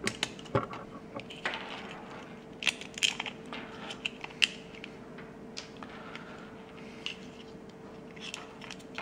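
Irregular clicks and knocks of hard plastic being handled as a small DC motor is worked out of a Lego Power Functions train motor's plastic housing, with a few sharper clicks a few seconds in, over a faint steady hum.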